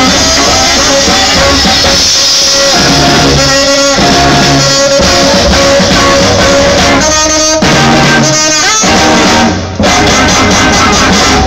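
Live swing band playing, with saxophones carrying held melody notes over a drum kit.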